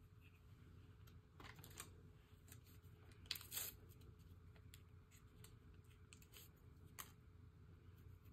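Faint, scattered small clicks and taps of something being handled, a few sharper clicks standing out about three and a half and seven seconds in, over a low steady hum.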